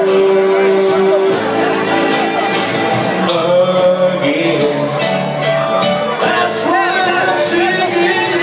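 Karaoke backing track playing loud over a PA, with a man singing the melody into a microphone in sustained, held notes.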